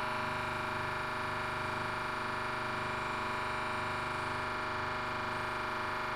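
The pressure chamber's pump runs steadily, raising the chamber pressure, with a constant hum of several steady tones.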